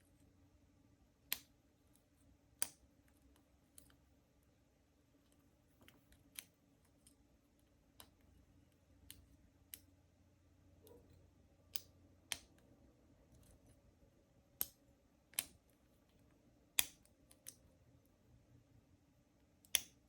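Lock pick and tensioner working the pins inside an Ace 50mm laminated padlock: faint, irregular sharp clicks every second or two, a handful of them louder.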